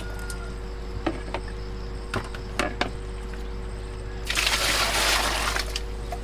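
Several light plastic knocks and clicks as a dipper and bucket are handled. About four seconds in, a white plastic bucket is tipped and water pours out and splashes for over a second.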